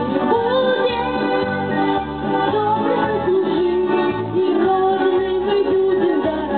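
A child singing a song into a microphone, amplified through a loudspeaker over an instrumental accompaniment with a steady beat.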